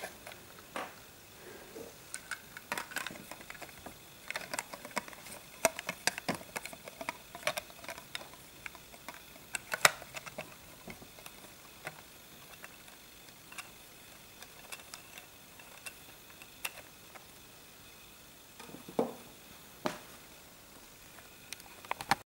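Lego bricks and plastic gears being handled and turned by hand, giving irregular plastic clicks and knocks, a few of them ringing briefly.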